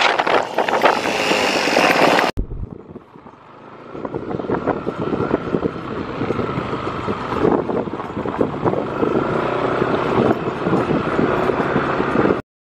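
Wind buffeting the microphone of a moving vehicle. After a cut about two seconds in, a quieter mix of a running vehicle engine and road noise, which cuts off abruptly just before the end.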